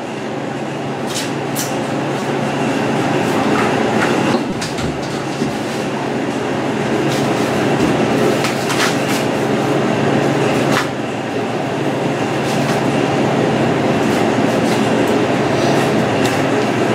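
A steady machine drone with a low hum, growing somewhat louder over the first several seconds, with scattered short clicks and rustles from the deer carcass being handled.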